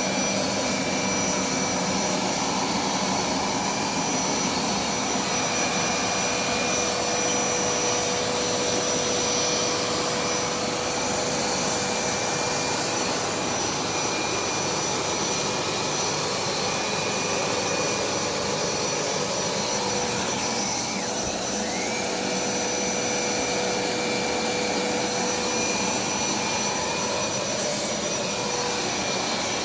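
Hoover SmartWash+ FH52000 carpet cleaner running steadily: a constant rush of suction with a steady motor whine.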